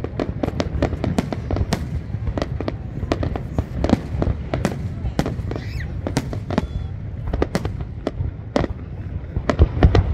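Aerial fireworks going off in rapid, irregular bangs, several a second, over a continuous low rumble.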